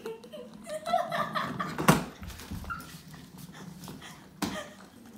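A kitten mewing in short high calls in the first second or so. A single sharp knock comes about two seconds in and a fainter click later.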